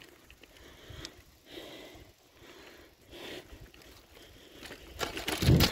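A cyclist's heavy, regular breathing while pedalling, with soft puffs about every second and a half. Near the end comes a louder, brief burst of rumble and rustle.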